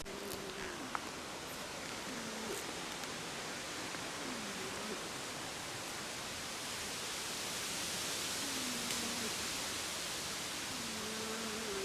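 Steady rushing noise, swelling a little past the middle, with a few faint, short, low falling tones scattered through it.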